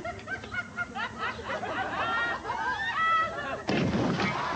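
Several voices shouting and calling out over each other, then a sudden heavy crash about three and a half seconds in.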